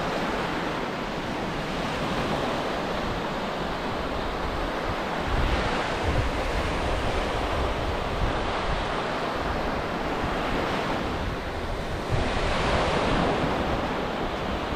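Sea surf washing onto a beach, with wind buffeting the microphone. The wash swells louder about five seconds in and again about twelve seconds in.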